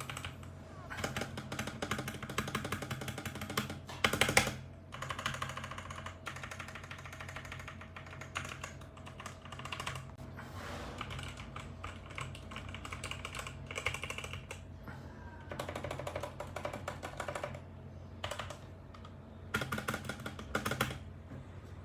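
Computer keyboard being typed on in fast runs of key clicks, broken by short pauses, with the loudest burst about four seconds in. A steady low hum runs underneath.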